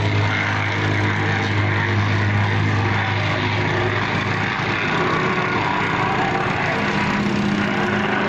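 Vibratory plate compactor's small petrol engine running steadily while the plate shakes and rattles over the ground. The steady low hum gives way to a coarser rattle about halfway through.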